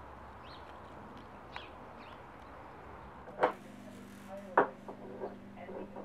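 Faint outdoor background with a few chirps, then a low steady hum and two sharp knocks of kitchen items handled at a sink, about a second apart, with a few lighter clinks after.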